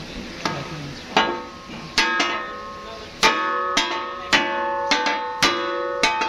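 Hammer blows on a metal boat propeller being straightened, about one every half second to second, each sharp strike leaving the blade ringing with clear metallic tones.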